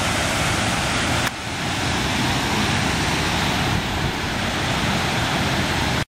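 Steady rushing outdoor noise, even from low to high pitch with no engine note or voice in it; it dips slightly about a second in and cuts out completely for an instant near the end.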